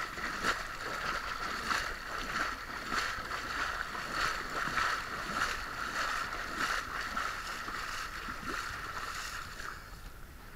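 Shallow sea water splashing and sloshing as a person wades through it towing a floating dry bag, in an even rhythm of about one and a half splashes a second, one per stride. The splashing dies down near the end as they reach the water's edge.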